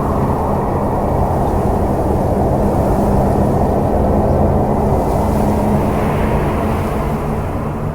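Steady low rumble with a droning hum.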